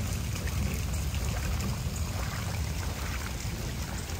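Torrential rain pouring steadily onto a swimming pool and flooded patio: an unbroken hiss of falling water with a low rumble beneath it.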